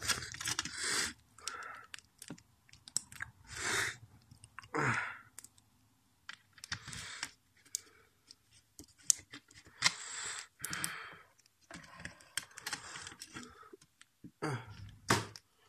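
Handling noise of plastic parts being turned over and fiddled with in the hands: scattered small clicks and taps with brief rustling and scraping, stopping and starting.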